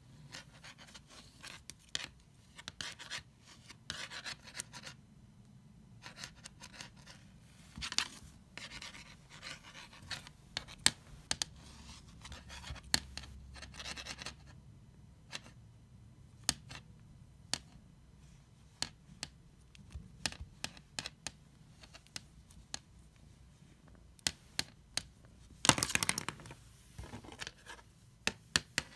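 A Sharpie marker and a cat's claws knocking and scraping on a wood-grain floor as the cat paws at the marker: scattered light clicks and scratches, with a louder burst of scraping near the end.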